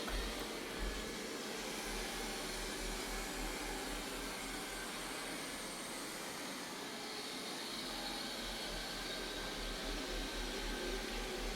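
Samsung Bespoke Jet Bot Combo AI robot vacuum running on a hard floor: a steady whirring hiss of suction fan and brushes.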